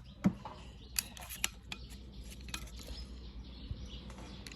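Scattered light metallic clicks and scrapes of a handheld measuring tool being set against a camshaft's lobes, about seven sharp clicks in all, the loudest just after the start.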